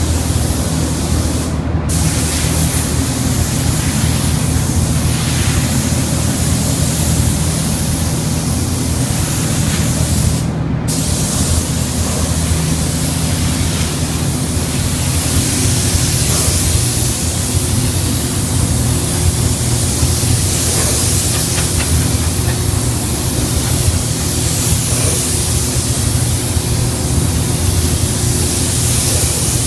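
Gravity-feed air spray gun hissing steadily as it sprays paint onto a car body panel, with two brief breaks where the trigger is let off, about two seconds in and about ten seconds in. A steady low hum runs underneath.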